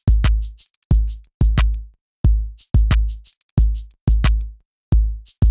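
Intro music: an electronic drum-machine beat of heavy bass-drum hits, about two a second, with short crisp ticks between them.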